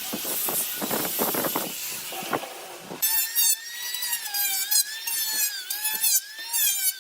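Woodworking tools at work on wood: scraping strokes over a hiss, then, after an abrupt change about three seconds in, a rapid repeating squeak over a wavering whine.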